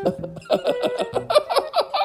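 Laughter in quick, evenly spaced ha-ha bursts over light background music.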